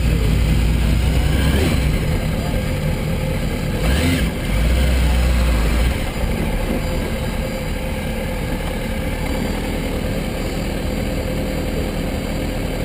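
2006 Kawasaki ZX-6R 636's inline-four engine running steadily at low revs as the bike rolls slowly along, with a brief dip about four seconds in.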